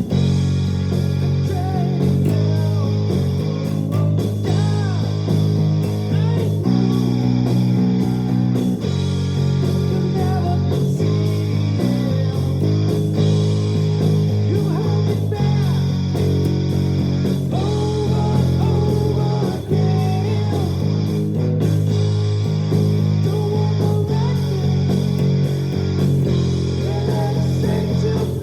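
Luxars S-KB20 travel-size electric bass playing a bass line over a backing track, with a steady drum beat and a gliding melody line above it.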